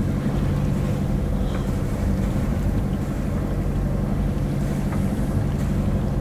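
Sailboat's engine running steadily under way, a low, even drone with no change in pitch.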